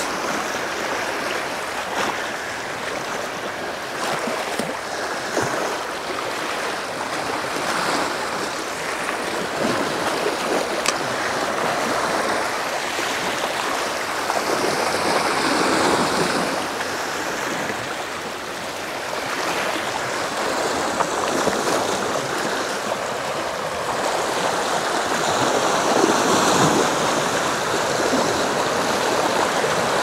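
Small waves washing against a rocky seashore, the wash swelling and ebbing every several seconds.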